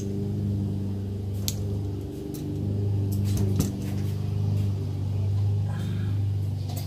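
A steady low machine hum runs underneath, with scattered small metal clicks and taps from needle-nose pliers working a dishwasher door spring.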